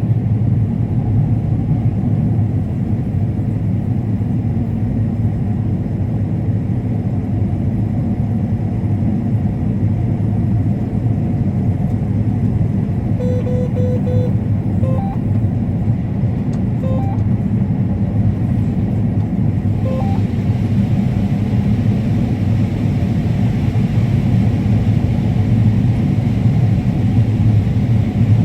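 Combine harvester running steadily while cutting corn, a constant low drone with no change in pitch. A few brief, faint beeps sound around the middle.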